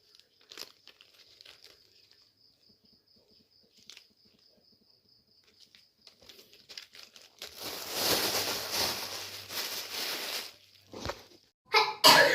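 A faint, steady high-pitched cricket trill with a few small clicks, then about three seconds of loud crinkling rustle. Near the end, loud coughing starts.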